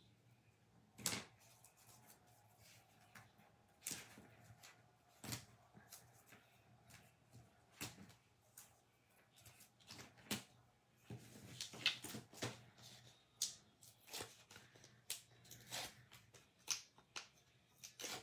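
Hands handling card stock and foam adhesive tape on a craft mat: scattered light clicks, taps and papery rustles, coming more often in the second half.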